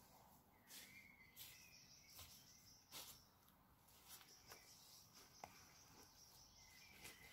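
Near silence: faint scattered clicks and rustles of someone handling camping gear, with a few faint bird chirps and a thin high steady tone in the background.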